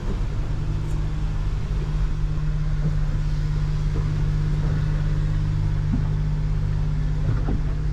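Steady low drone of the catamaran's engine running under way, heard from inside the hull, with a few faint knocks.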